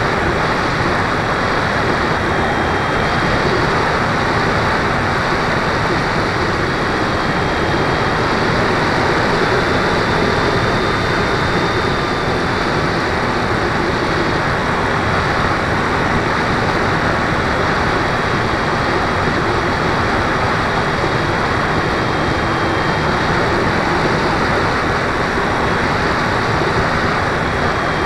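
Airflow and propeller noise of an RC model plane in flight, heard from its onboard camera: a steady loud rushing hiss with a thin, high motor whine that wavers slightly in pitch.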